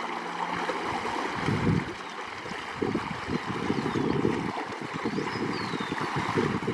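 Irrigation canal water splashing and churning around a man wading and groping through the current, with irregular louder surges of splashing over the steady sound of the flowing water.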